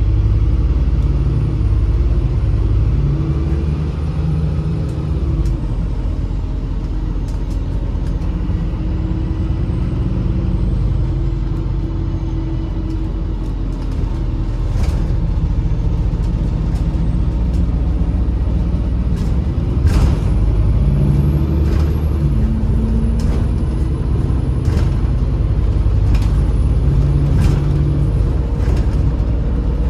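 MAZ-203 city bus heard from inside the cabin while driving: a steady engine drone and road rumble that rises and falls with speed, with occasional knocks and rattles, the sharpest about twenty seconds in.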